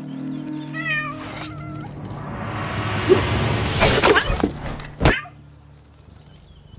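Background music with a short cat meow about a second in, then a rising whoosh that swells and ends in a sharp hit about five seconds in.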